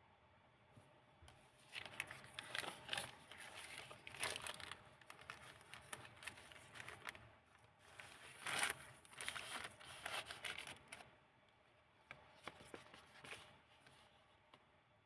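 Pages of a handmade junk-journal storybook made from old book pages being turned and handled, paper rustling and crinkling in a run of bursts that is loudest about eight seconds in, easing after about eleven seconds into a few softer rustles.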